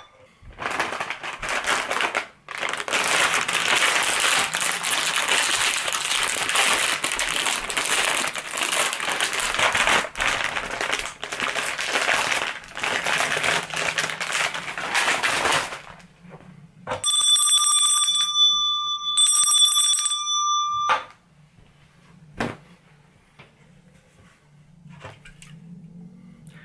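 A plastic cookie packet crinkling and rustling for about fifteen seconds as it is handled. Then a handbell is rung in two short spells of ringing, followed by a few light knocks.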